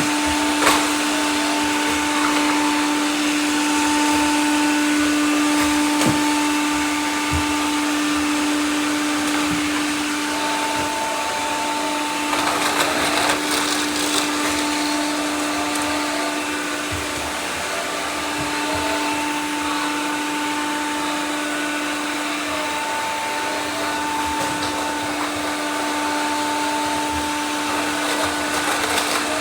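Several robot vacuums running at once: a steady motor hum and suction hiss, with a few brief knocks.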